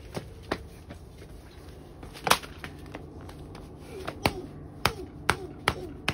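Hammer blows on a paper workbook lying on brick pavers: one loud strike about two seconds in, then a quick run of five strikes about half a second apart near the end.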